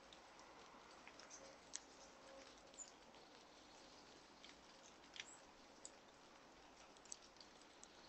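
Faint, irregular clicks and ticks of a red squirrel picking through and nibbling seeds and grain on a feeder tray, over a quiet background hiss.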